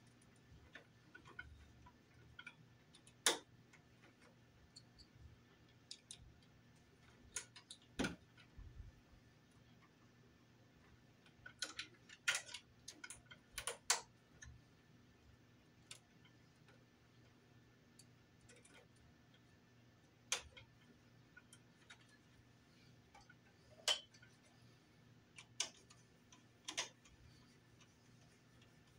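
Hand tools and electrical wires being worked at a wall electrical box, making about a dozen short, sharp clicks and taps at irregular intervals. A faint steady hum runs underneath.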